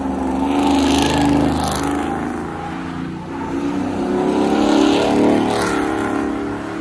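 A truck engine revving hard at high rpm, its note swelling twice, with a hissing rush at each peak.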